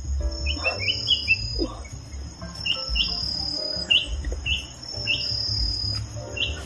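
Short, high bird chirps repeated about a dozen times, several in a quick run about half a second in and then singly every half second to a second, over a steady, high insect buzz.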